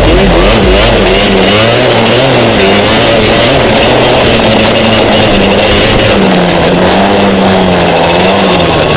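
ATV engine running under varying throttle, its pitch rising and falling as it rides over sand dunes, with music playing over it.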